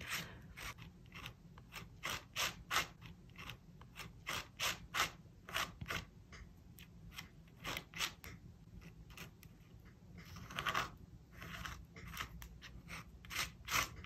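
Palette knife scraping crackle paste across a stencil in short, quick strokes, several a second, with a couple of longer scrapes near the end.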